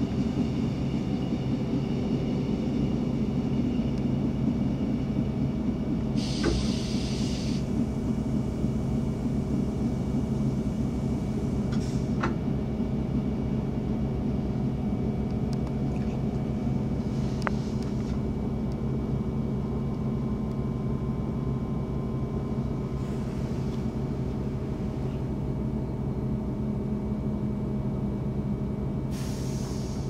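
Passenger train running on the track, heard from inside the carriage: a steady low drone from the drive and wheels, with a few sharp clicks and several short hissing bursts. The drone eases slightly toward the end as the train slows.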